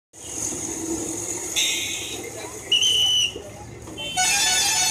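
Open-air market ambience with a steady background murmur, broken by a short high beep about three seconds in and a longer, louder horn-like blare from about four seconds in, like vehicle horns in the street.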